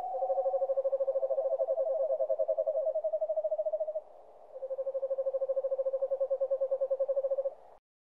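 An owl giving rapid, pulsing trills on one pitch: one about four seconds long, then after a short pause a second of about three seconds that stops abruptly.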